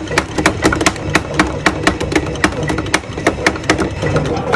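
Driving-range golf balls dropping one after another from a ball dispenser's chute into a plastic range basket, a fast run of sharp clicking knocks about four or five a second as the basket fills.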